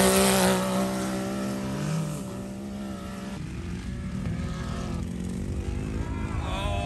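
Side-by-side UTV engine running loud as it passes close by, then fading and dropping in pitch as it pulls away, leaving a quieter engine drone from vehicles on the dune. Voices come in near the end.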